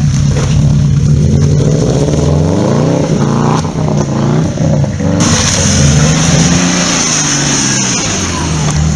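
Off-road SUV engines revving as they pull along a muddy track, the pitch rising and falling with the throttle. A second SUV comes past close by near the end, with a hiss that rises about five seconds in.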